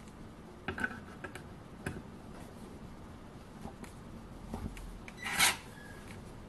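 WORX WX240 mini electric screwdriver working a screw in a wooden board: a few light clicks of the bit on the screw head, then a short rasping burst about five seconds in as the screw turns in the wood.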